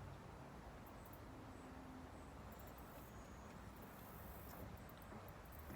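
Near silence: faint outdoor background hiss with a few brief, faint high-pitched chirps.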